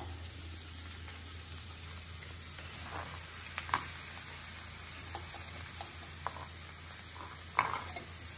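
Brinjal pieces frying in oil in a metal kadai, a steady soft sizzle, with scattered clinks and knocks of the spatula against the pan. The sharpest come about two and a half seconds in and again near the end.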